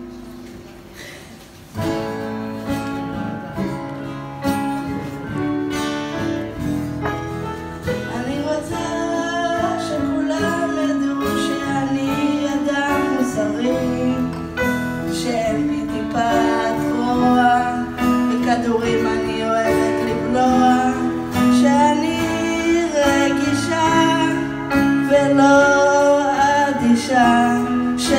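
Acoustic guitar accompanying a woman singing a song. The guitar comes in about two seconds in, and the music grows gradually louder.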